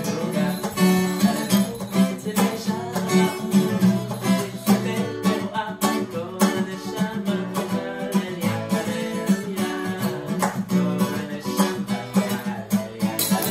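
Acoustic guitar strummed and plucked, playing a steady rhythmic song.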